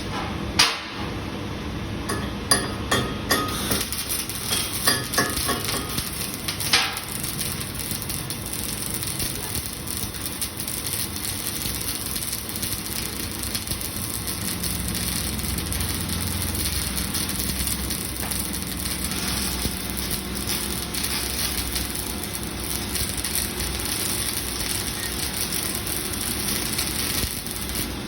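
A string of sharp metallic knocks in the first seven seconds, then a steady crackling hiss of a flux-cored arc welding torch running on pipe.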